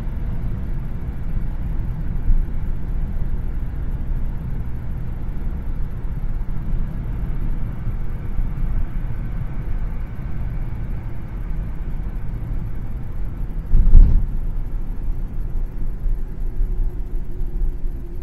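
Steady low rumble of a car's road and engine noise heard from inside the cabin, with a single loud thump about three-quarters of the way through.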